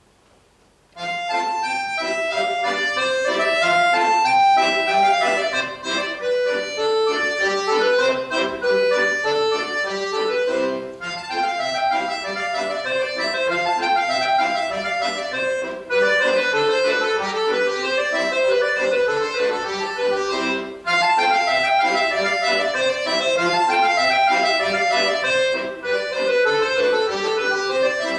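Solo accordion playing, coming in about a second in, with short breaks between phrases about every five seconds.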